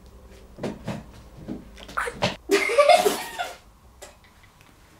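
People laughing: short laughs, then a louder, breathy burst of laughter about two and a half seconds in that dies away after about a second.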